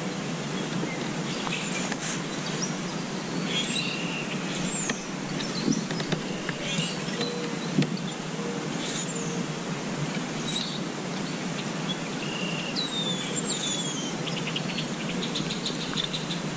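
Small birds chirping, with scattered short calls and a few falling whistles, over a steady background hiss.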